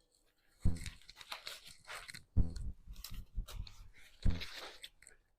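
Plant packaging being handled during an unboxing: crinkling and rustling of paper or plastic wrapping, with three soft knocks spaced about two seconds apart.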